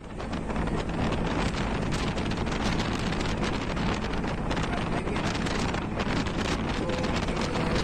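Wind buffeting the microphone on a moving vehicle, over a steady low road rumble.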